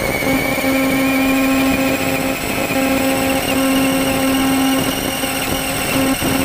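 Radio-controlled Summit truck's electric motor and gearbox whining as it drives over grass, the whine rising in pitch over the first few seconds and then easing off, over a steady hum and the noise of the drivetrain and tyres.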